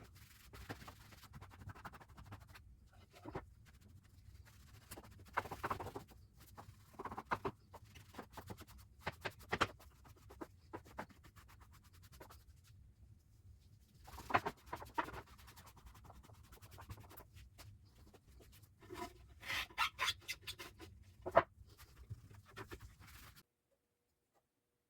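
Irregular scratching and rubbing with small clicks and knocks, from hand work on a wooden sewing box, coming in bursts with short pauses; it cuts off abruptly near the end.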